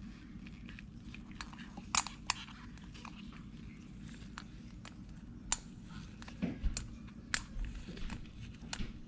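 Lug nut caps being pushed onto a wheel's lug nuts by hand: scattered sharp clicks and small knocks, a few louder than the rest, over a low steady hum.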